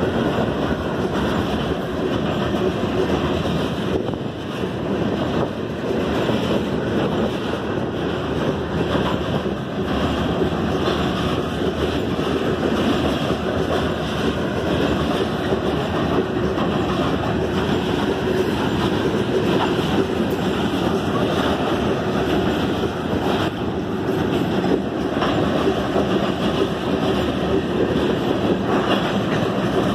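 Freight train of covered hopper cars rolling past: loud, steady rumble and clatter of steel wheels on the rails.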